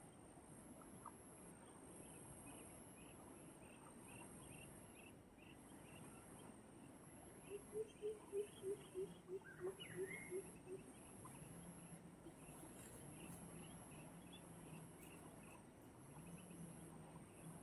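Faint wild animal calls: a repeated high chirping throughout, and about seven seconds in a quick run of about ten low hoots, roughly four a second, the loudest sound here.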